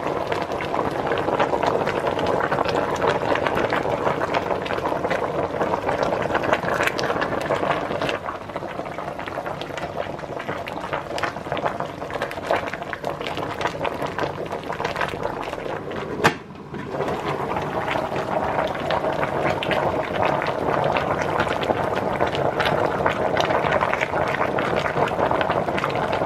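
A large aluminium pot of watercress boil-up with meat and vegetables at a rolling boil: steady bubbling with fine crackling pops, and a single sharp click about sixteen seconds in.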